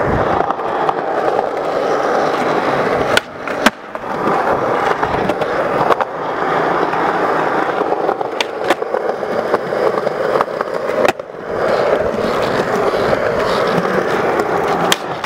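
Skateboard wheels rolling over rough concrete with a steady grinding noise, broken by several sharp wooden clacks from the board popping and landing.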